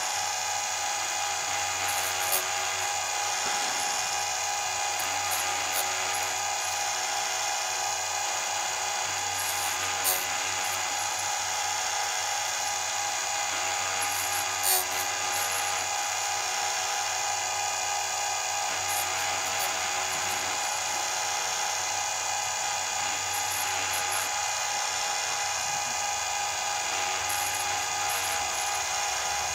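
An electric chainsaw chain sharpener running with a steady motor whine as its grinding wheel grinds the tops of the chain's rakers (depth gauges) flat. A few short sharp ticks come about 2, 10 and 15 seconds in.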